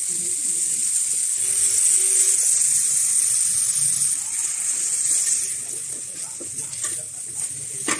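Chicken and garlic sizzling in hot oil in a stainless steel pot with a steady high hiss, as soy sauce is poured in. Later comes the scrape of a wooden spatula stirring, with a sharp knock against the pot near the end.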